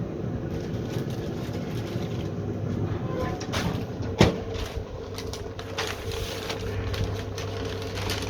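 A steady mechanical hum with scattered clicks and knocks as a smoker is opened and racks of ribs are taken out, with one sharp clank about four seconds in.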